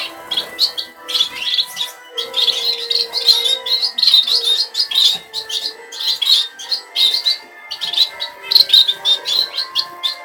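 A room of small caged finches (zebra, star and Bengalese finches) calling continuously: many short, high chirps overlapping several times a second.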